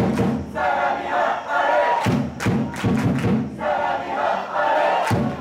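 Football supporters chanting in unison in repeating rhythmic phrases, backed by regular drum beats.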